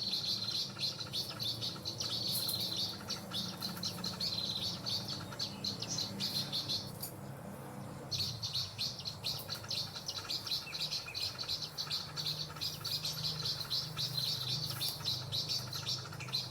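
Prenjak (bar-winged prinia) calling: a rapid, dense run of high chirps that pauses briefly about seven seconds in, then resumes.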